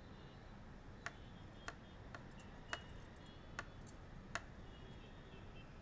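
Quiet room tone with a handful of faint, sharp clicks at uneven intervals.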